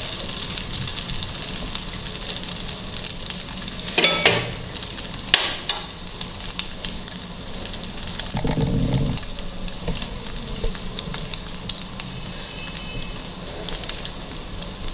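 Oil sizzling and crackling steadily under an egg-dipped sandwich shallow-frying in a nonstick pan, its second side browning to golden. Two sharp clicks about four and five seconds in, and a brief low bump a little past the middle.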